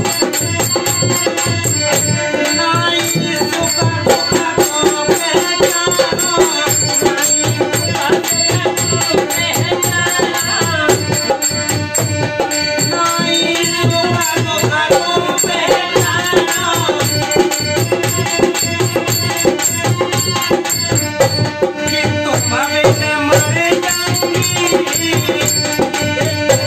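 Hindi devotional folk song (bhajan): a harmonium playing the melody and held chords, a dholak beating a quick, steady rhythm, and men singing over them.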